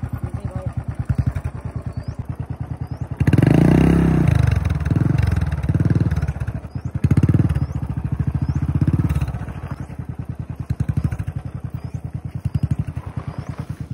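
Royal Enfield motorcycle engine chugging along in low gear on a rough dirt track, with bursts of throttle as it climbs over ruts. The biggest burst comes about three seconds in, and shorter blips follow every couple of seconds.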